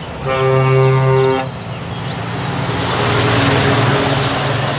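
Scania tanker truck sounds a steady air-horn blast for about a second, then drives past, its engine hum and tyre noise swelling and easing off.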